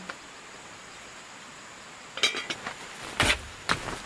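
Dishes clinking briefly about two seconds in, with a ringing tone, followed by two louder sharp knocks about a second later.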